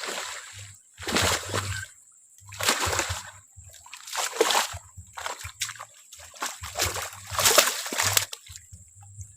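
Water splashing hard in about five irregular bursts, each lasting half a second to a second or more, with short quiet gaps between them.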